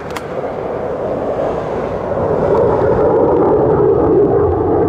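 F-35 fighter jet's engine roar, growing steadily louder as the jet approaches.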